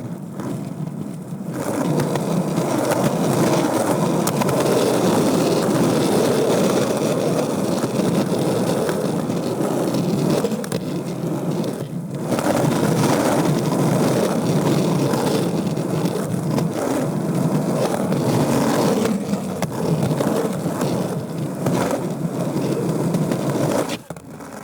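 Skateboard wheels rolling on a concrete floor, heard up close from a mic under the deck: a continuous rolling noise that eases briefly about halfway through and falls away near the end.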